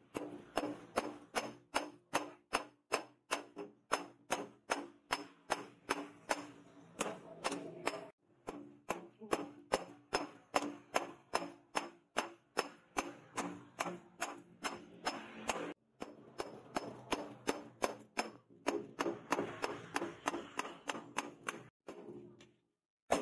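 Hand hammer striking a red-hot bearing-steel sword blade on a steel post anvil: steady blows about two to three a second, each with a short metallic ring, broken by a few brief pauses.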